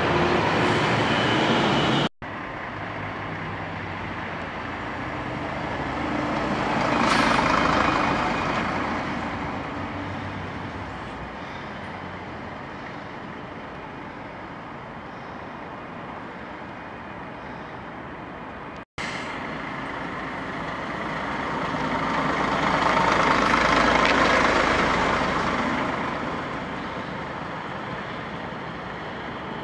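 A single-decker bus engine running as the bus drives slowly along a lane, its noise swelling twice and fading again. At the start, about two seconds of an electric express train at a station platform, cut off suddenly.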